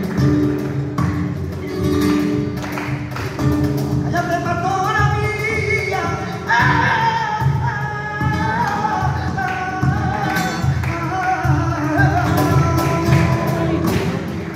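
Flamenco music: guitar accompaniment with a singer entering about four seconds in on a long, wavering, ornamented cante line.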